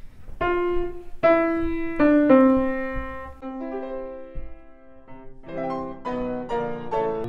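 Yamaha C3X grand piano played: a slow melody of single notes left ringing, turning into quicker, fuller playing about five and a half seconds in.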